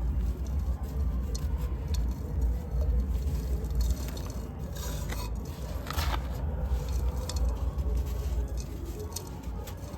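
Dry sand-cement cylinders and clay pot pieces crumbling by hand, with scattered gritty crackles and a louder crunch about six seconds in, over a steady low rumble.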